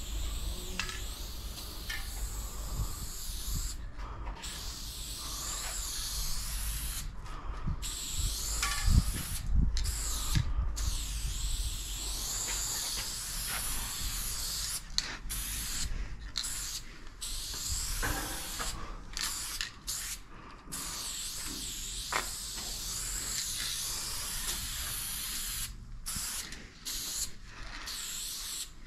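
Aerosol spray paint can hissing in long bursts, broken by many short pauses between strokes.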